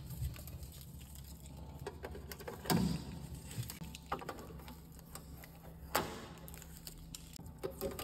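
Fingers handling the plastic shelves and trim inside a new Electrolux Inverse refrigerator and peeling off its blue protective tape: light rustling with a few sharp plastic clicks, the clearest about three and six seconds in, over a low steady hum.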